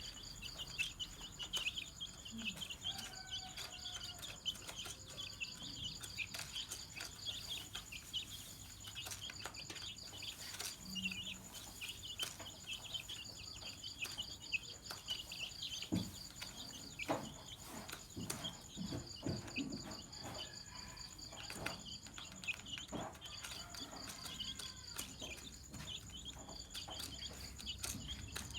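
Domestic chicks cheeping: a dense, continuous run of short, high peeps from several birds, with a steady high-pitched whine behind them and a few soft knocks about midway.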